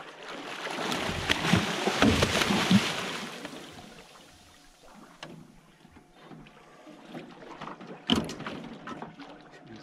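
A hooked shark about two metres long thrashing at the surface beside the boat, loud splashing with several heavy thuds of water for about three seconds, then dying away. A single sharp knock comes near the end.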